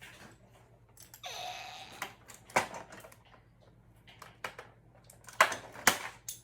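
Scattered sharp clicks and knocks of small plastic toys and packaging being handled, with a brief rustle about a second in and a few louder knocks near the end.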